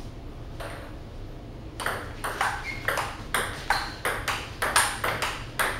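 Table tennis rally: the ping-pong ball clicking sharply off the paddles and the table in quick alternation, about three hits a second, starting about two seconds in.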